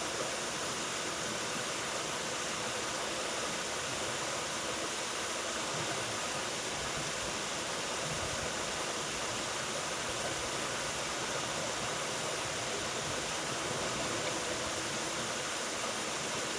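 Waterfall's falling water rushing steadily, an even unbroken hiss with no change.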